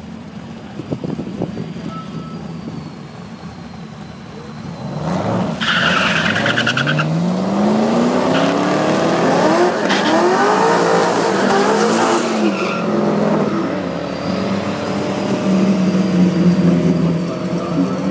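A Chevrolet Camaro SS V8 and a Nissan 350Z launching off a drag-strip start line, with tyre squeal as they leave. Their engines rise in pitch through several gear changes as they pull away down the strip. Near the end another car's engine runs close by, louder again.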